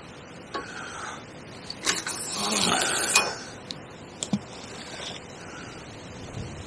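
A fishing rod being cast: a swish and the line hissing off the reel for about a second, cut short by a sharp click, followed by a few light clicks from the reel.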